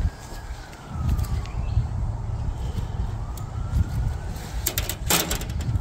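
A distant siren wailing, its pitch rising and falling in two slow sweeps, over a steady low rumble. About five seconds in comes a short burst of sharp clinking as the metal seekh kebab skewers are handled.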